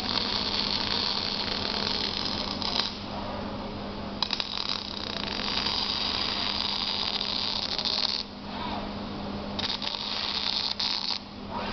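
Robotic arc welding: a crackling, sputtering arc that burns in three runs of a few seconds each, stopping briefly between them. A steady low hum runs underneath.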